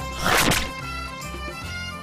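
Background music with a steady low beat, and a brief loud rush of noise a few tenths of a second in.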